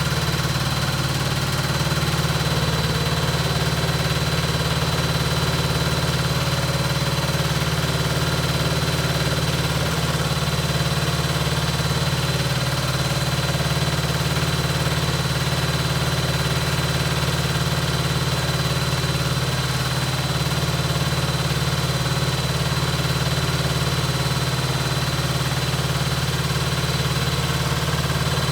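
Hoover Ecologic Computer washing machine on a spin-only cycle, running steadily: a low hum with a steady high whine over it.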